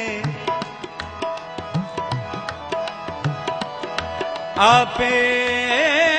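Harmonium holding steady chords under tabla playing a brisk rhythm of sharp strokes, with sliding bass-drum notes, in a Sikh kirtan interlude. About four and a half seconds in, a singer's voice comes in on a long, wavering held note over the accompaniment.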